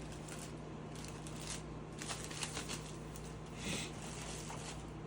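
Light rustling and crinkling of packaging with small clicks, as the Play Button and its box are handled; a short cluster of crackles a little after two seconds and a brief rustle near four seconds.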